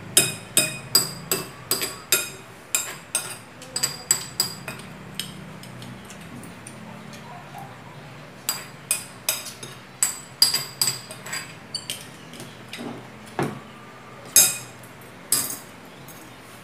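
Metal spoon and chopsticks clinking against a small glass bowl: a quick run of sharp, ringing clinks, a pause of a couple of seconds, then more clinks, the loudest near the end.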